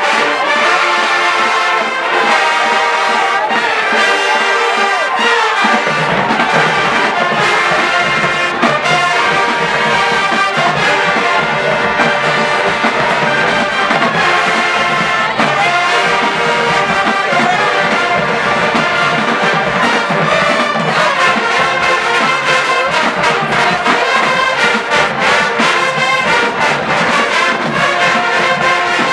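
Black college marching band playing loudly, led by its brass section; the low brass comes in about six seconds in, filling out the bottom of the sound.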